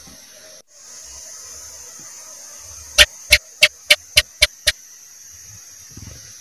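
House gecko (cicak) calling: a run of seven sharp chirps over about two seconds, loudest at the first and fading, coming slightly faster toward the end, over a steady high hiss.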